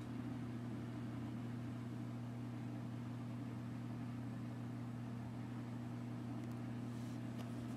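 Steady low mechanical hum at an even level, of the kind a running fan or appliance makes, with a few faint clicks near the end.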